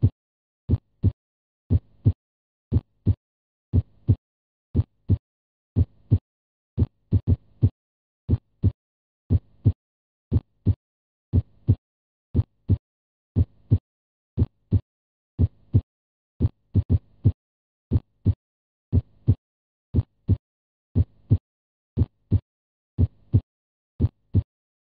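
Heartbeat sound: a steady double thump, lub-dub, repeating a little slower than once a second.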